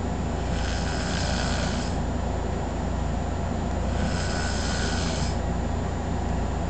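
A sleeping man snoring: two long, breathy snores about three and a half seconds apart, over a steady low rumble.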